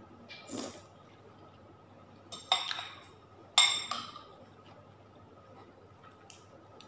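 Metal spoon and fork clinking twice against a plate, about a second apart, each strike ringing briefly. A short, softer eating sound comes about half a second in.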